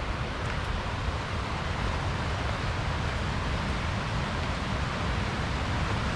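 Steady rushing of a rocky river's shallow rapids, an even noise without breaks.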